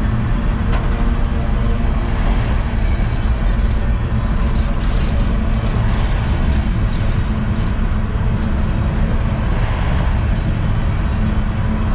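A loaded CSX unit coal train rolling past: a steady low rumble of wheels on rail, with a few faint high ticks and squeals in the middle.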